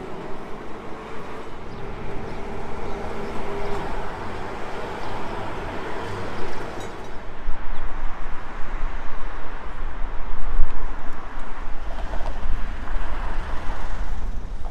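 City street traffic with trams: a steady rumble of tram wheels and road vehicles, growing heavier about halfway through, loudest a few seconds later, then easing off.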